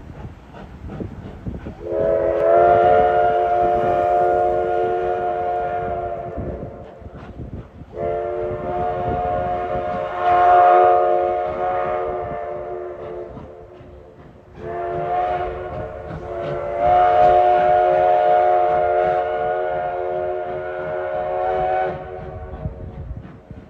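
Narrow-gauge steam locomotive's whistle blowing three long blasts, each a chord of several notes held for five to seven seconds, with faint beats of the engine working between the blasts.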